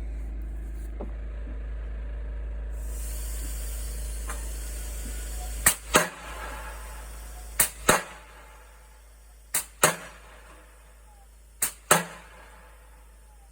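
Mantis pneumatic pile-driving hammer driving a piling. A compressed-air hiss comes on about three seconds in, and from about six seconds the hammer strikes in pairs, two quick blows every two seconds or so.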